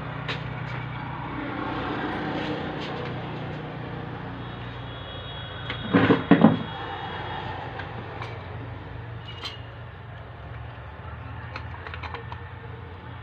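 Parts of a dismantled car alternator handled on a wooden workbench: scattered light clicks and two louder knocks about six seconds in, over a steady low machine hum.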